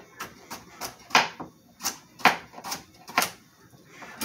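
Knife chopping carrots on a cutting board: about a dozen sharp chops, irregularly spaced at two or three a second.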